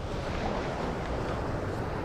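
Steady wind buffeting the microphone, with small waves washing onto the beach underneath.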